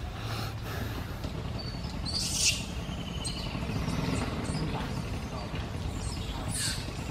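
Birds chirping: a sharp high call about two and a half seconds in, followed by a quick trill, and another sharp call near the end, over a steady low hum.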